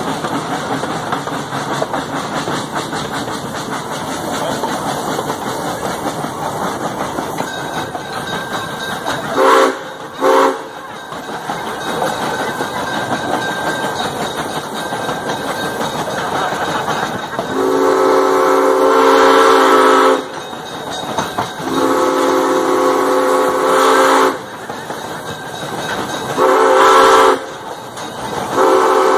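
Narrow-gauge 4-4-0 steam locomotive's deep whistle over the steady rolling of the train on its track. It gives two quick toots about ten seconds in. Later come two long blasts and a short one: the grade-crossing signal as the train nears a level crossing.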